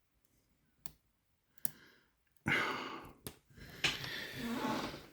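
Sharp clicks of a pick and tension tool working in a small padlock's keyway, then heavy breathing close to the microphone from about halfway through.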